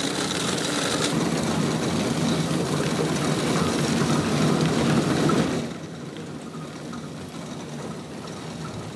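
Roller mill running, its fluted rolls grinding corn kernels into meal, as a steady mechanical noise. It cuts off about five and a half seconds in, leaving a much quieter steady background.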